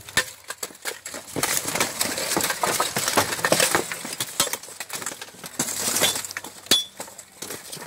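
Weapons striking steel plate armour, helmets and shields in a buhurt melee: a rapid, irregular run of metallic clanks and bangs, thickest from about a second and a half in, with one sharp lone strike near the end.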